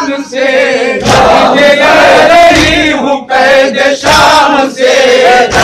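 A group of men chanting a nauha, a Muharram lament, in unison through microphones. A few heavy thumps about a second apart mark chest-beating (matam) in time with the chant.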